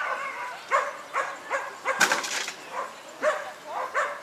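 Dog barking repeatedly in short barks, about two a second, with a brief hiss about halfway through.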